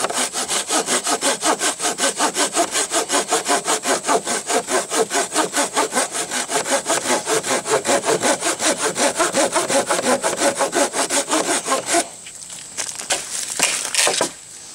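Folding pocket saw with cross-cut teeth sawing through a dry, weathered log in fast, even push-and-pull strokes, about four a second, cutting on both strokes. The sawing stops about twelve seconds in, followed by a few brief scuffs.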